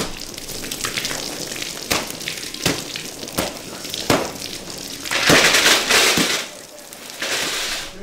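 Stage-blood rig spraying a pumped jet of fake blood from a practical creature's blowhole: a continuous hiss and splatter broken by sharp splashes about once a second, growing loudest a little past the middle.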